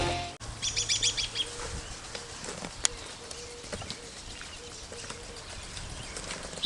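Quiet outdoor ambience: a bird gives a quick run of high chirps about half a second in, then only faint scattered clicks and rustles.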